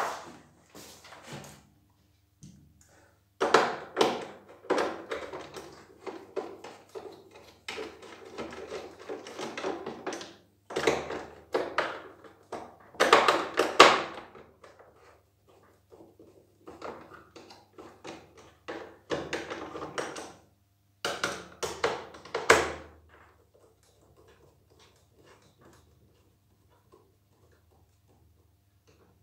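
Clicks, knocks and plastic rattles from hands and a hand screwdriver working on the plastic frame of a Nilfisk E 140.3 pressure washer, coming in irregular spells of a few seconds each and stopping about three-quarters of the way through.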